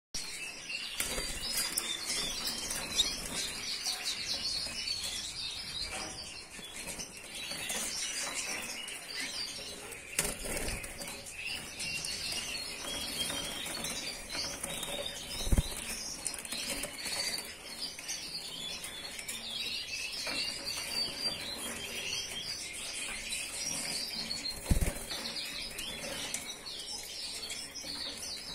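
A cageful of Parisian frill and Padovan frill canaries chirping and twittering without a break, with wing flapping. A few short knocks, the loudest about fifteen seconds in and again near twenty-five seconds, come as birds land on the perch and cage wire.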